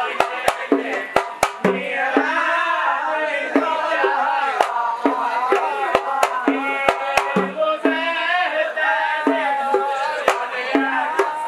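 A group of men singing a zarbadi devotional poem together, accompanied by small Hadrami hand drums (marawis) playing sharp strokes in an uneven, lively pattern over deeper drum beats.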